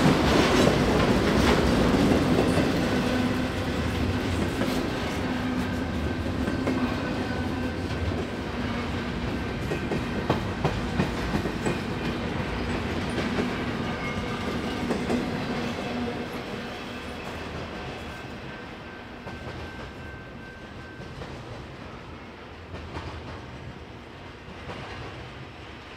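Freight train rolling past, its steel wheels clicking over rail joints above a steady hum. The sound fades over the last third as the end of the train moves away.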